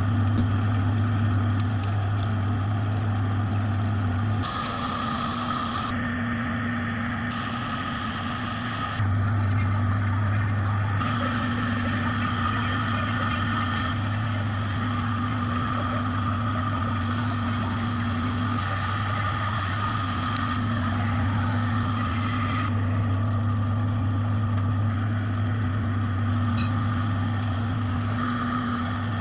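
Electric motor of a spinning potter's wheel humming steadily, with a low mains-type hum under a higher whine. It is quieter between about 4 and 9 seconds in.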